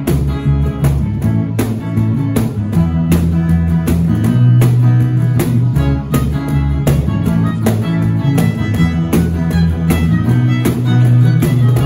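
Live band playing an instrumental passage: a violin carrying the melody over electric guitar, keyboard and bass guitar, with a steady beat on a cajón.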